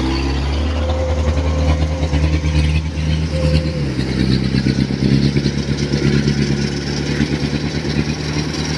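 Rice combine harvester's engine running steadily as the machine drives across a muddy paddy, its note shifting about four seconds in.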